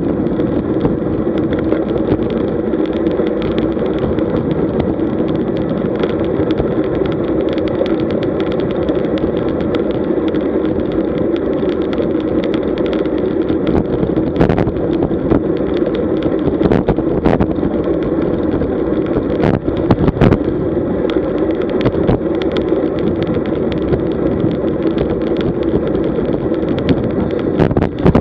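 Steady rush of wind over the microphone and tyre hum on asphalt from a road bike riding at about 44 km/h, with an occasional sharp knock.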